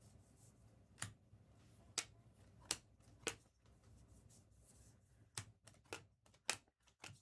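Trading cards being handled and flipped through: a string of sharp, irregular clicks and snaps, coming faster near the end.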